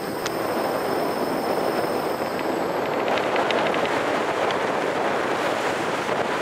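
Strong wind buffeting the microphone: a steady rushing noise, with a few faint clicks about three seconds in.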